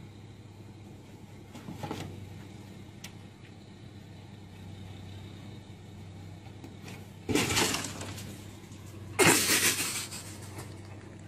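Two sudden loud crashes about two seconds apart in the second half, each trailing off over about a second, over a steady low hum.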